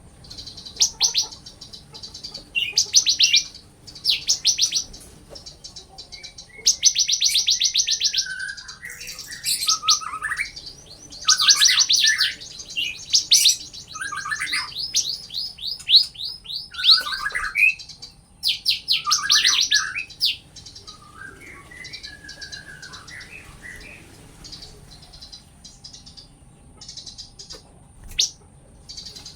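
Songbird singing: bursts of very fast, high trilled notes every second or two, mixed with lower slurred whistles. The song thins out and gets quieter after about twenty seconds.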